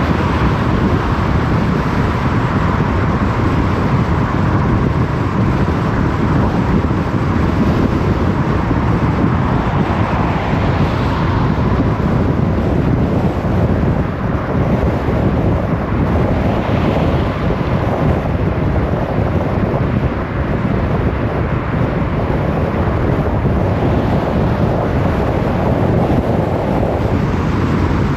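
A car driving steadily on the open road: continuous tyre roar and wind rush.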